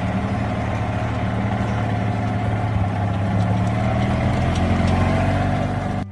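Farm cart's engine running steadily, cutting off abruptly near the end.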